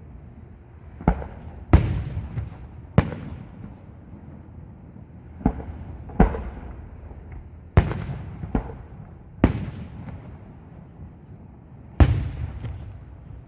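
Aerial firework shells bursting in a display: about nine sharp bangs at irregular intervals of one to two and a half seconds, each followed by a rumbling echo that dies away.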